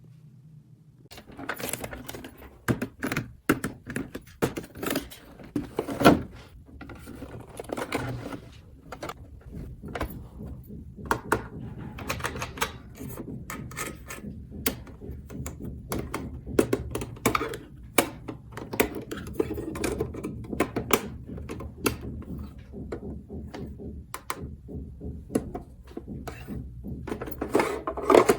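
Many quick, irregular clicks, taps and knocks of small plastic toy pieces being handled and set down on a hard surface, over a low steady hum.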